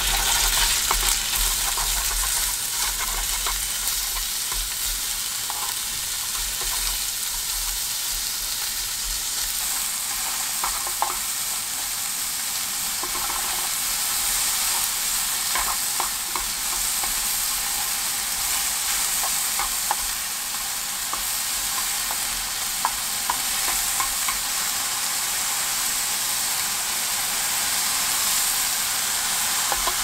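Sliced pork sizzling in a small pan over a gas stove, stirred with chopsticks that click against the pan now and then.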